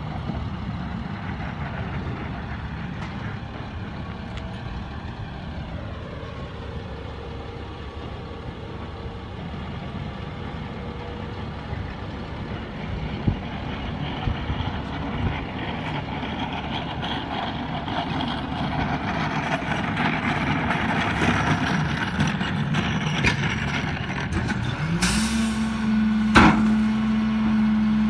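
Garbage truck running, its sound building over the second half. About 25 seconds in a steady low drone rises into place and holds, and a single sharp bang follows about a second later.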